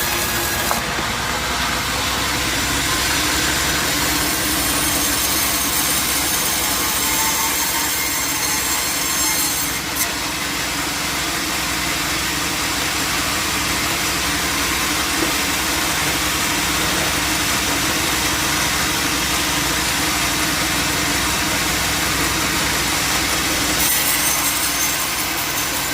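Sawmill saw running steadily through a log, the drive motor and the blade cutting wood in one continuous loud din.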